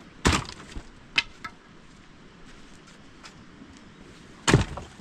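Large dry tree branches knocking and clattering as they are handled and put down: a sharp clatter just after the start, two lighter knocks about a second in, and a louder clatter near the end.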